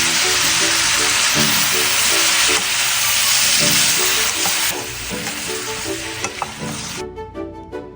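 Celery and shredded meat sizzling as they fry in a hot pan, a loud steady hiss that eases somewhat partway through and stops about a second before the end. Background music plays under it.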